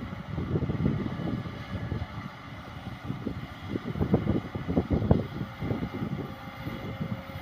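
Kobelco excavator's diesel engine running under load while loading soil, a low rumble that swells unevenly, loudest about four and five seconds in.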